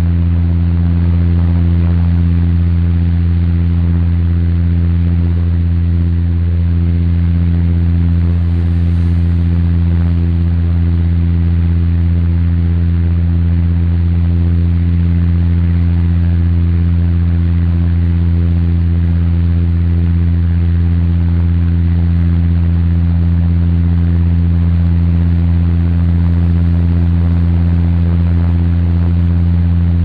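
Airliner cabin noise in cruise, heard inside the cabin: a loud, steady low hum with several steady tones stacked above it over an even hiss.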